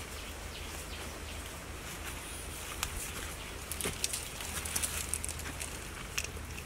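A long digging stick jabbing and scraping into loose soil around a buried tuber, with scattered short scratchy clicks that are busiest about four seconds in, over a steady outdoor hiss.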